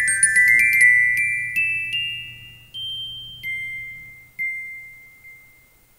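Intro jingle of bright, bell-like glockenspiel-style chimes: a quick sparkling run of struck notes at first, then a few single notes about a second apart, each ringing on and fading, the last dying away near the end.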